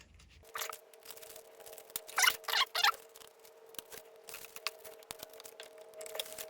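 Small screws being driven into the hedge trimmer's plastic housing to hold the primer bulb's retaining plate: scattered light clicks and scraping, with two louder scrapes a little over two seconds in. A faint steady hum runs underneath from about half a second in.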